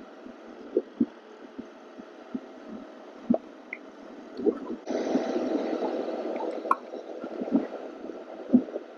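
Muffled wind buffeting on a rider's wireless mic during a motorcycle ride: a faint rush broken by scattered soft thumps, with a louder, steadier rush of wind and road noise from about five to seven seconds in.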